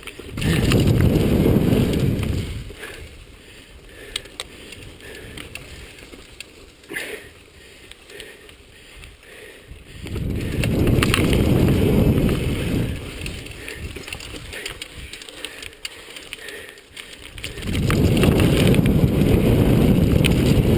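Chumba VF2 mountain bike bouncing down a rocky trail: its frame, chain and parts clatter with sharp clicks as the tyres hit rock. Three loud spells of wind rumble on the microphone come with the faster stretches: at the start, about ten seconds in, and again near the end.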